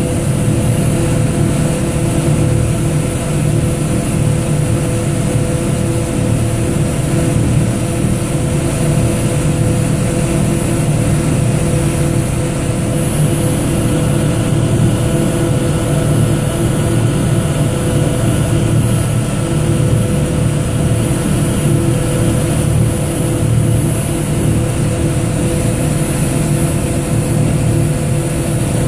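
Venetian vaporetto's diesel engine running steadily underway, heard from aboard, with water rushing along the hull.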